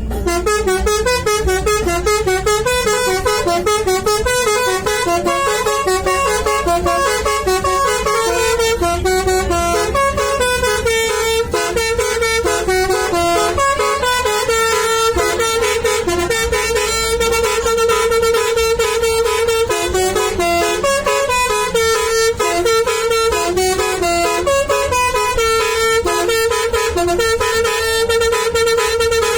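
Indonesian 'telolet' bus horn, a set of musical multi-tone air horns, playing a fast tune of stepped notes over and over, with a few notes held longer.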